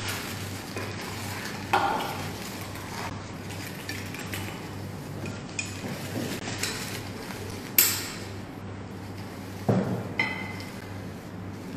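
Plates, bowls and utensils knocking and clinking as food is plated, a scattering of separate knocks with the loudest about eight seconds in and a ringing clink near the end, over a steady low hum.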